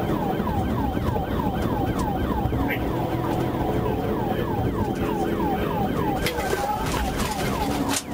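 Police car siren on rapid yelp: a fast, even run of falling notes, about four a second, heard from inside the patrol car over steady engine and road noise. The yelp breaks briefly about six seconds in, and the sound drops out for a moment at the very end.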